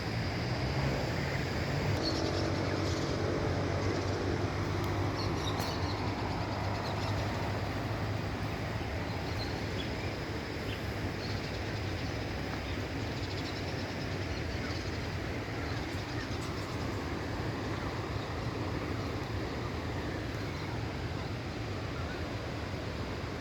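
Steady rush of a river or waterfall, with a few faint bird chirps over it.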